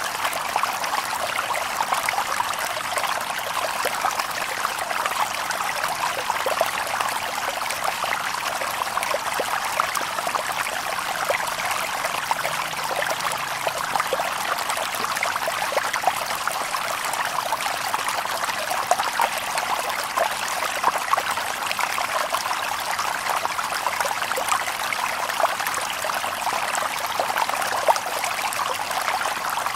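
Shallow stream babbling over stones: a steady splashing trickle, light and bright with little low rumble.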